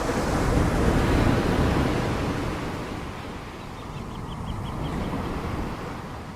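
Ocean waves breaking on a shore: a wave swells to a crash about a second in and washes out, followed by a smaller surge near the end. A faint quick run of high chirps sounds about four seconds in.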